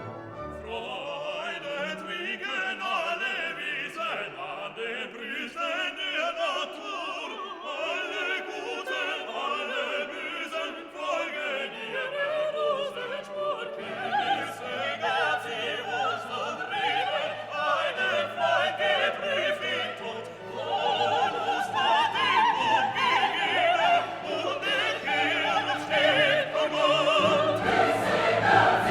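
Background classical music with an operatic singing voice and choir over an orchestra, growing louder in the second half.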